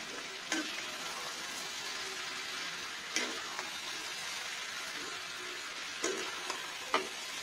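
Chicken pieces in spices sizzling steadily in a kadai while a spatula stirs them, knocking and scraping against the pan about four times.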